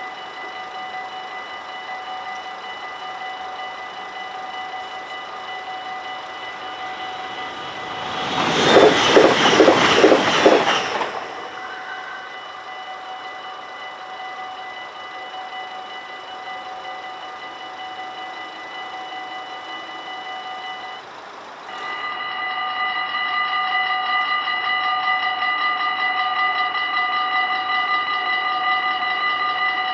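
Dutch level-crossing warning bells ring steadily while the barriers are down. About nine seconds in, a train passes at speed, a loud rush of wheels and air lasting about two and a half seconds. After about twenty-two seconds the bells sound louder and closer.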